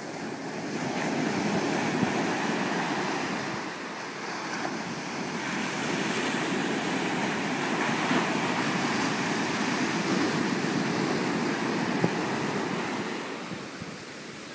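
Small waves breaking at the shoreline and foam washing up over the sand: a steady rush of surf that swells about a second in, eases briefly around four seconds, then builds again and fades near the end.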